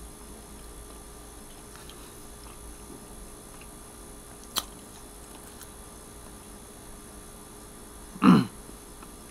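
Low room tone with one sharp click about halfway through, then near the end a man's single short, loud throat sound that falls in pitch.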